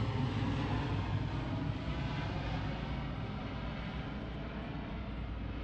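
C-130 Hercules four-engine turboprop flying over, a steady low drone that slowly fades as it moves away.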